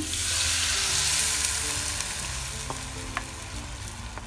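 Milk-and-flour mixture poured into hot melted butter in a nonstick frying pan, sizzling loudly at once and dying down over the next few seconds. A couple of light taps of a wooden spatula against the pan come about three seconds in.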